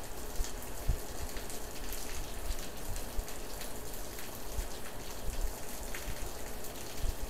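Rain falling steadily in a storm, with many scattered drop taps over an even hiss and occasional low thumps.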